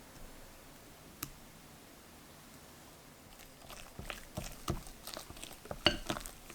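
Kitchen handling sounds: one light click about a second in, then from about halfway a run of small irregular taps and knocks of utensils and a bowl, with one sharper ringing clink near the end.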